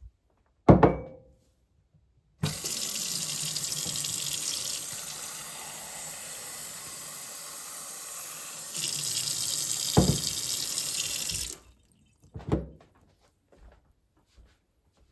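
Water running from a tap into a container for about nine seconds, easing partway through and growing stronger again before it is shut off. A sharp knock comes before it, and another knock near the end of the flow.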